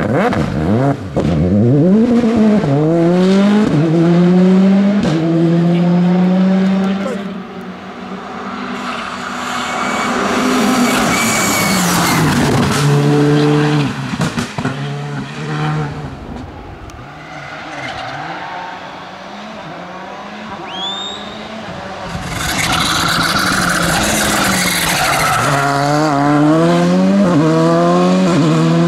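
R5 rally cars, turbocharged four-cylinder, driving past one after another at speed. Each engine's revs climb and drop in steps through the gear changes, with a loud rush of tyre and engine noise as each car goes by close.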